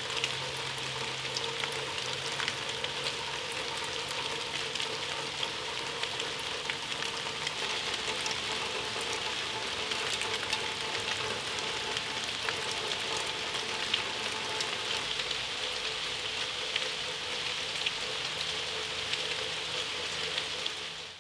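Steady rain falling, with scattered drops ticking close by, over a faint steady hum.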